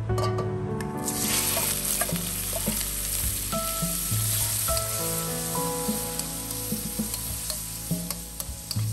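Scallops dropped into hot oil in a wok, bursting into sizzling about a second in and frying steadily, with a metal spatula clicking and scraping against the wok as they are stir-fried. Soft background guitar music underneath.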